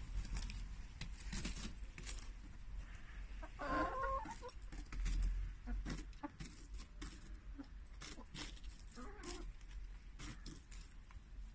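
Backyard hens clucking now and then while they peck at a head of cabbage, with many quick sharp clicks from beaks striking and tearing the leaves.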